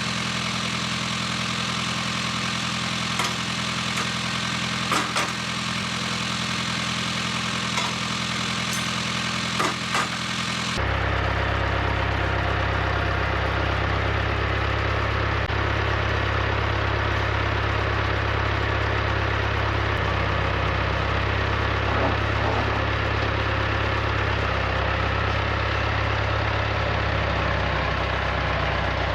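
Tractor engine running steadily, with a few light knocks in the first ten seconds. About a third of the way through, the sound switches suddenly to a deeper, louder engine note that holds steady.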